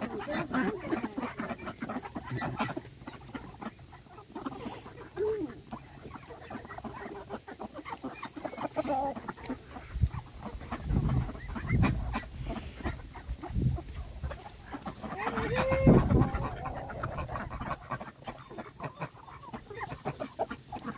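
A mixed flock of chickens and ducks feeding on cracked corn: hens clucking, many small pecking clicks against the ground and cup, and scattered short calls, with a louder drawn-out call about sixteen seconds in. A few low thuds fall near the middle.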